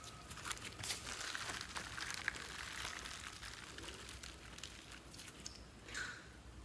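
Store-bought slime with clay mixed in, stretched and pulled by hand, giving off many small irregular sticky clicks and crackles.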